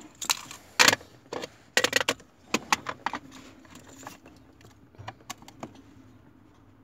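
Sharp plastic and metal clicks and clatter as an electric power steering control module is handled and seated onto the steering column's assist motor. There is a dense run of clicks over the first three seconds, then a few more about five seconds in.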